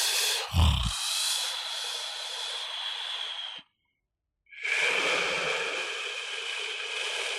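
A person snoring: a short low snort about half a second in, then a long airy breath, a gap of about a second, and another long breath.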